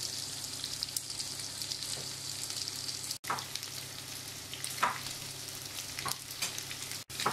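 Diced smoked ham frying in a nonstick pan: a steady sizzle with small crackles of fat, and a wooden spoon scraping through the pieces a few times. The sound drops out for an instant twice.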